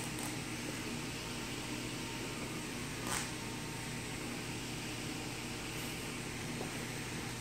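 Steady low hum and hiss of reef aquarium equipment running, with one short click about three seconds in.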